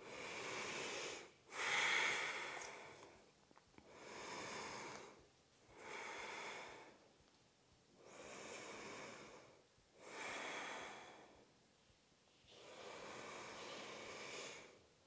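A woman breathing slowly and audibly, seven long breaths in and out, each lasting one to two seconds, while she holds a deep hamstring forward-fold stretch.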